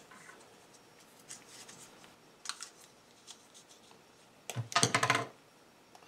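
PTFE (Teflon) thread-seal tape being wrapped by hand onto a small threaded pipe fitting: faint rustling and soft clicks, then a louder burst of rapid crackling clicks lasting under a second, about four and a half seconds in.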